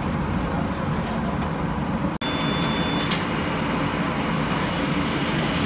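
New Orleans streetcar running, heard from inside the car in heavy rain: a steady rumble and noise. About two seconds in the sound drops out for an instant, then a thin, steady high beep sounds for about a second and ends in a click.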